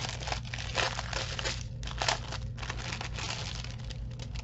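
Thin clear plastic packaging crinkling as hands work a bag of diamond painting drill packets open, a steady run of crackles with a few louder ones about one and two seconds in.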